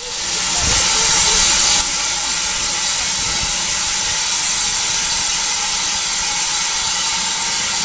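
Steam hissing steadily from a small saddle-tank steam locomotive standing in steam. It is a little louder for the first two seconds or so, then settles to an even hiss.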